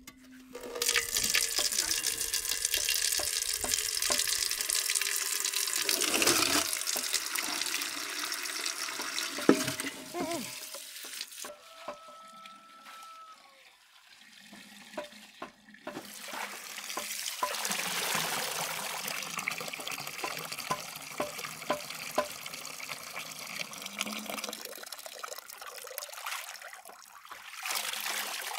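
Running water splashing steadily, as from a tap, in two long stretches with a quieter break in the middle.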